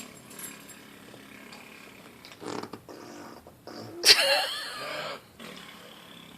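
A baby blowing wet raspberries with his lips, making fart-like noises: a short one about two and a half seconds in, then a louder, longer, voiced one lasting about a second from about four seconds in.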